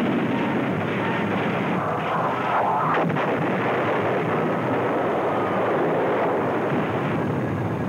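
Battle sound on an old film soundtrack: anti-aircraft gunfire against a diving plane, a dense, continuous din with a brief rising whine and a sharp crack about three seconds in.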